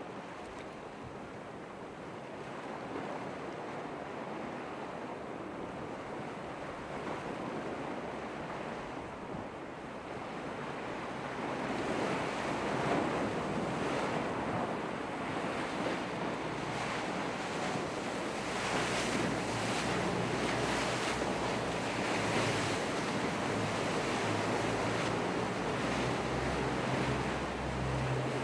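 Surf and waves breaking, with wind buffeting the microphone; the rush grows louder about halfway through. In the second half a low engine drone from a boat comes in and grows steadily stronger.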